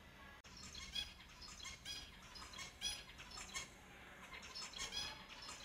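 Finches making short, repeated chirping calls, several a second and overlapping.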